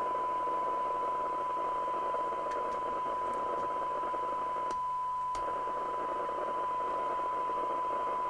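CB radio receiver's audio output playing a steady 1 kHz test tone through heavy hiss, with the signal generator turned down to the 12 dB SINAD point for a receive sensitivity measurement.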